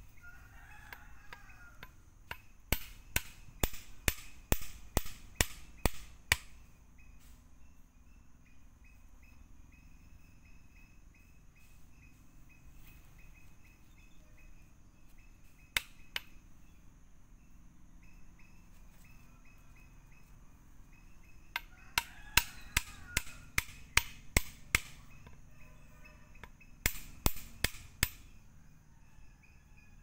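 A wooden stake being knocked into the ground with sharp, quick blows, in runs of about a dozen strikes each, with a single knock midway. A rooster crows in the background, and insects drone steadily.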